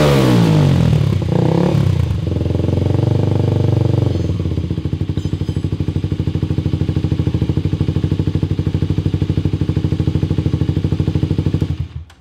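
Kawasaki Ninja 250 SL's single-cylinder engine breathing through an Arrow Thunder slip-on exhaust: the revs fall away from a throttle blip, then settle into an idle with a fast, even pulsing beat from the exhaust. The sound cuts off suddenly near the end.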